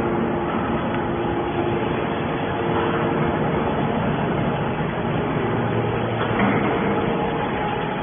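Automatic hydraulic scrap metal baler running: a steady mechanical noise with a hum of a few steady tones that fades about a second in and comes back briefly near the end.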